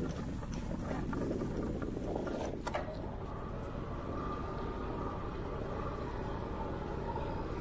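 Bicycle riding on an asphalt bike path: a steady low rumble of wind on the microphone and tyres on the pavement, with a sharp click about two and a half seconds in.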